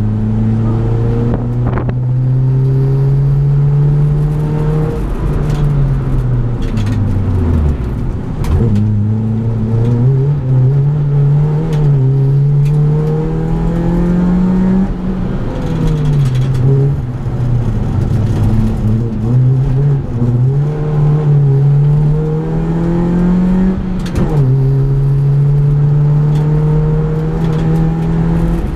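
Competition car's engine heard from inside its stripped, roll-caged cabin, driven flat out. The revs climb in long rising runs, drop sharply at gear changes and fall steeply under braking about eight seconds in. Through the middle they rise and fall on and off the throttle, with steady road and tyre noise underneath.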